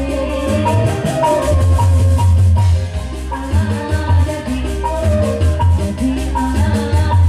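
Instrumental passage of a song medley: a steady beat with pulsing bass and fast, even shaker-like ticking, and a melody line on top, with no singing.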